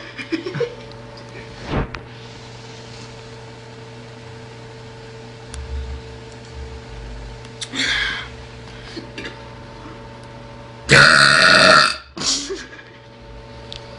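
A young woman belching: a smaller burp about eight seconds in, then a long, loud burp lasting about a second near the end, followed at once by a shorter one.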